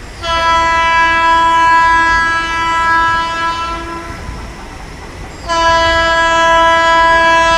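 WAG-12B electric locomotive's horn sounding two long, steady single-pitch blasts: the first lasts about four seconds, and the second begins about a second and a half after it stops. A low rumble of the approaching train runs underneath.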